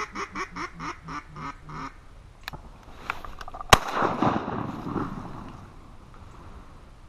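A rhythmic series of duck quacks, about three to four a second, then a fainter crack and, a little past halfway, a single loud shotgun blast whose report trails off over the next two seconds.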